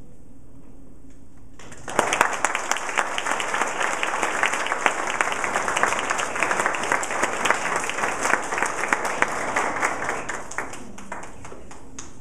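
Audience applauding: many people clapping, starting suddenly about two seconds in and dying away near the end.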